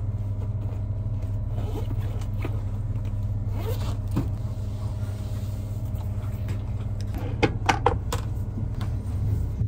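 Steady low hum inside a train carriage, with the rustle and scrape of a backpack being handled and unzipped. A quick cluster of sharp clicks and knocks comes about seven to eight seconds in.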